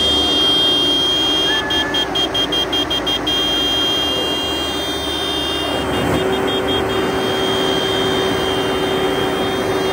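Large farm tractors running at a standstill, with steady high electronic tones over the engines. About two seconds in there is a quick run of short pulses, about six a second, and from about six seconds on a steady horn-like tone is held.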